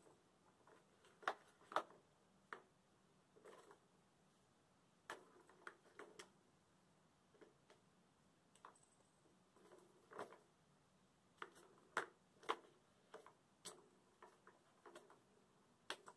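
A kitten batting at a plastic three-tier ball-track tower toy. Light plastic clicks and knocks come at irregular intervals, with little clusters of two or three close together.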